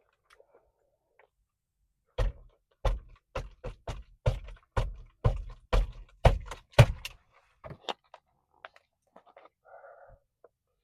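Close-miked crunchy chewing of sesame coconut crickets: about a dozen crisp crunches, roughly two a second, that stop a couple of seconds before the end.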